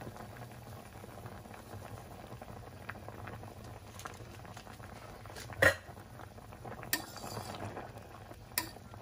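A stainless steel pot of broth at a rolling boil, bubbling steadily. A metal ladle knocks against the pot once loudly a little past halfway, with lighter clinks near the end.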